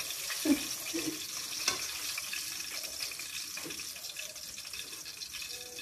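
Hot oil sizzling steadily as battered red devil cichlid pieces deep-fry in a wok, with a single light click about a second and a half in.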